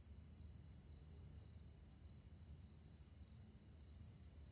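Faint crickets chirring steadily in a thin, high-pitched trill over low room tone.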